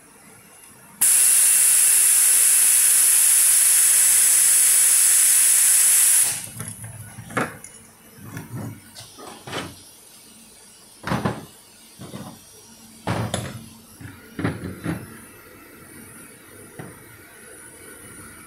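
Pneumatic drill running for about five seconds, a loud steady hiss of exhaust air as its hex bit drives a socket-head screw, then cutting off. After it, a few scattered short knocks and clunks.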